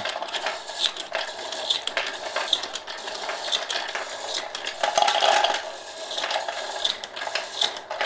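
Loose bullets clinking and clattering against each other and the plastic hopper of a 3D-printed bullet feeder as its rotating plate turns and sorts them; a continuous run of small irregular clicks.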